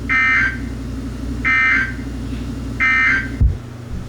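Emergency Alert System data tones on NOAA Weather Radio: three identical short, buzzy digital bursts about a second and a half apart, the end-of-message code that closes the severe thunderstorm warning. The radio's low hum runs underneath, and a sharp click follows near the end as the broadcast switches back.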